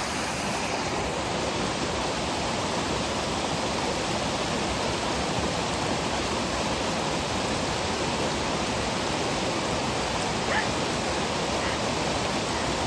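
Steady, even rush of fast-flowing mountain water, like a waterfall or torrent, with no change in level.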